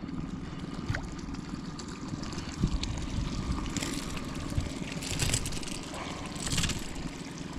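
A hooked small snook splashing at the surface several times as it is reeled up to the boat, over a steady low rumble.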